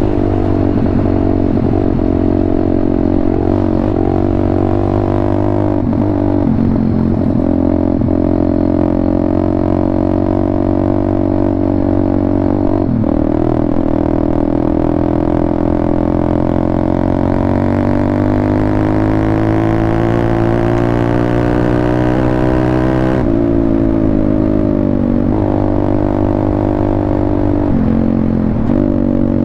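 WPB Beast 190 pit bike's 190cc single-cylinder four-stroke engine running under way. Its pitch dips briefly a few times, climbs slowly for several seconds, then drops sharply a little past two-thirds of the way through.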